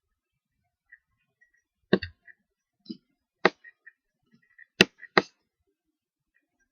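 Computer mouse clicking: four sharp clicks spread over a few seconds, with fainter ticks in between.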